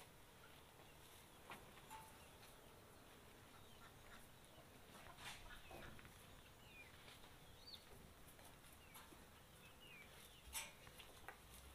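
Faint farmyard birds chirping now and then, short rising-and-falling chirps mostly in the second half, over a low hiss, with a few light knocks, the loudest near the end.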